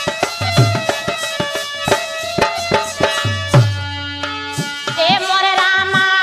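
Instrumental interlude of a Hindi sohar folk song: hand drums play a steady rhythm under held chords. About five seconds in, a woman's singing voice comes in.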